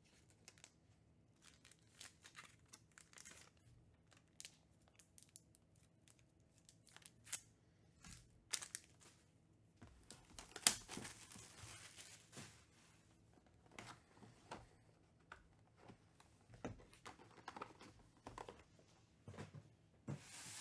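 Faint tabletop handling of a trading-card box and packaging: scattered clicks and rustles, then a longer stretch of tearing and crinkling wrapper about ten seconds in.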